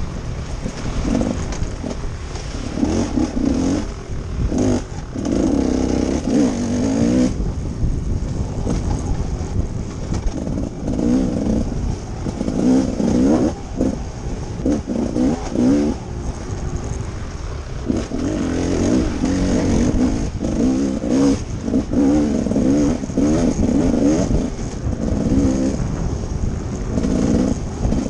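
Dirt bike engine revving up and falling back again and again as the throttle is worked along a rough woodland trail. Wind rushes on the helmet-mounted microphone, with frequent knocks and clatter from the bike over bumps.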